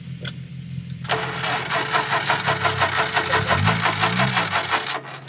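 Jeep Wrangler engine running at idle on a rock ledge. About a second in, a loud rapid mechanical rattle starts and lasts about four seconds, with the engine revs rising and falling briefly near the end, then it cuts off and the idle carries on.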